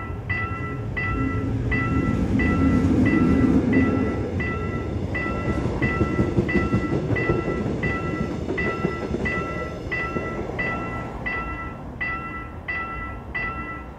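Level-crossing electronic warning bell chiming about twice a second while a Mugunghwa-ho passenger train passes over the crossing. The train's wheels rumble and clatter on the rails, loudest about two to four seconds in, and fade before the end as the bell keeps ringing.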